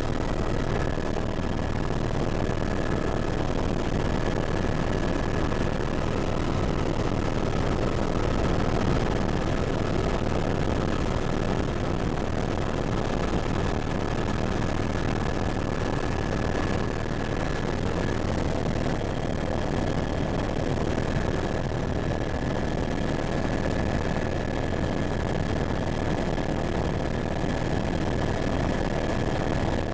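Helicopter running steadily, a dense unbroken engine and rotor noise with a steady high whine over it.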